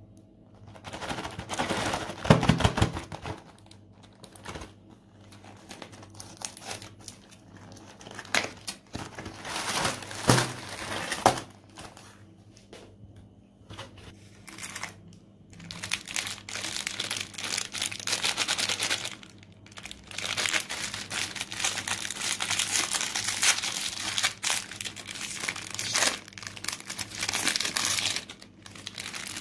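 Foil wrappers of Oreo cookie packs crinkling and crumpling as they are handled and peeled open, in irregular bursts with short pauses between.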